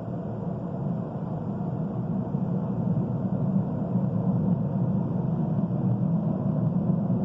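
Low, rough rumbling drone that slowly grows louder, the kind of unexplained sky noise reported as a 'skyquake' (cielomoto).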